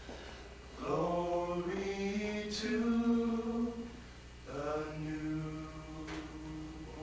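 Men's a cappella group singing, holding long sustained notes with a short pause about four seconds in.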